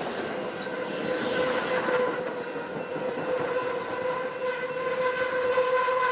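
Amtrak Pacific Surfliner passenger train running past at the crossing: a steady rolling rush with a held, even tone over it that grows a little louder toward the end.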